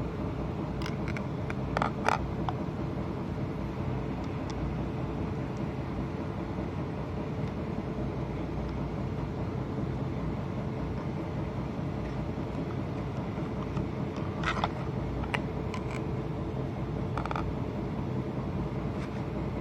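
A few short metallic clicks and clinks from handling an angle grinder and its cutting disc while fitting it, heard twice: about two seconds in, and again in a cluster near the end. A steady low hum runs underneath.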